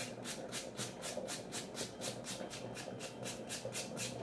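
A carrot being grated on a hand-held metal grater: quick, even rasping strokes at about five a second.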